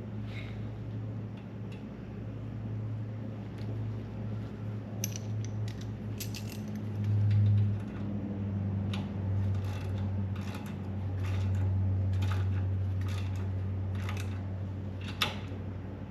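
Scattered light metallic clinks and taps of hand tools and metal parts being handled, over a steady low hum that swells twice. One sharper clink near the end is the loudest.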